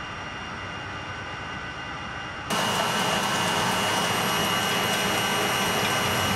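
Steady mechanical whirr of a film-rewinding motor and projection-booth machinery, with a faint steady high whine. It is quieter and duller for the first two and a half seconds, then louder and clearer.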